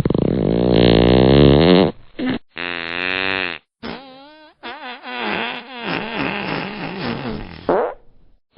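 A string of fart sounds one after another: a long rasping fart for about two seconds, then shorter, higher, squeaky ones with a wobbling pitch, then a longer sputtering one that ends in a rising squeak.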